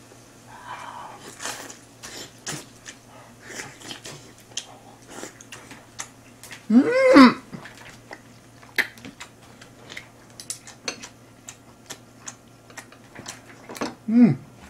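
A man chewing a mouthful of grilled beef, with wet mouth clicks and smacks scattered throughout. He gives a loud hummed vocal sound about halfway through and a shorter one near the end.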